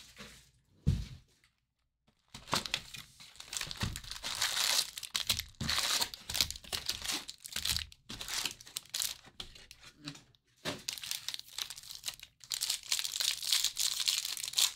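Wrappers crinkling and tearing as a sealed box of baseball cards is opened, ending with a foil card pack being torn open. There is a soft thump about a second in.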